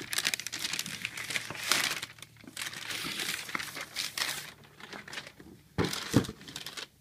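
A thin plastic carrier bag crinkling and rustling as it is handled and a boxed toy quadcopter is pulled out of it, with a couple of louder knocks near the end.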